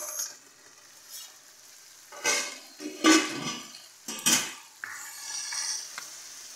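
A wooden spoon scraping and stirring in a steel cooking pot, three strokes about a second apart, then a steady sizzle as carrots fry in a pan near the end.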